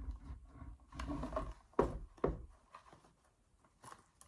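Soft handling noise as plastic PICC line caps are pushed through a buttonhole in a cotton-spandex sleeve: faint fabric rubbing and a few light taps, with two sharper ones about two seconds in.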